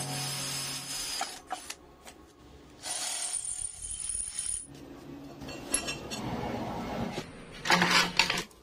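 A cordless drill boring holes through steel flat bar, first a pilot hole and then a larger hole. It runs in several spells of a few seconds with short pauses between, and there is a brief louder sound near the end.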